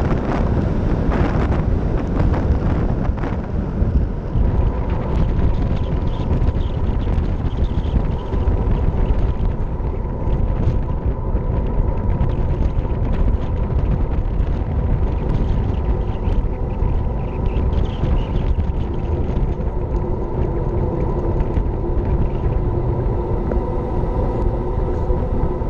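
Wind rushing over a bike-mounted action camera's microphone as a road bike rides at speed: a loud, steady low rumble. A faint steady whine comes in after a few seconds.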